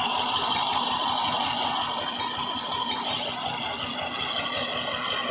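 Diesel tractor engine running steadily, turning a belt-driven centrifugal water pump through a long flat belt; the pump is still priming, with only a trickle at the outlet.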